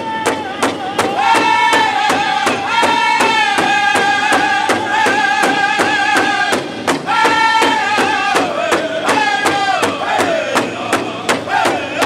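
Powwow drum group singing in high-pitched unison over a large hide powwow drum, struck together with drumsticks in a steady beat of about three beats a second. The singers hold a long high note, break off briefly about seven seconds in, then come back and let the melody fall in stepping phrases near the end.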